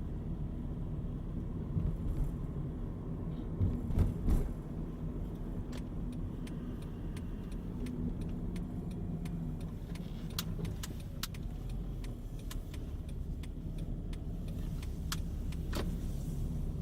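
Car driving, heard from inside the cabin: a steady engine and road rumble. A couple of thumps come about two and four seconds in, and small clicks and rattles are scattered through the second half.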